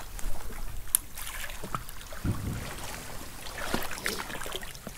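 Shallow seawater lapping and trickling at the edge of a rocky shore, with a few small clicks and a brief low thud a little over two seconds in.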